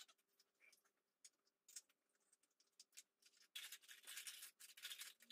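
Faint rustling of a cotton bedsheet being smoothed flat by hand: several soft swishes, the longest near the end.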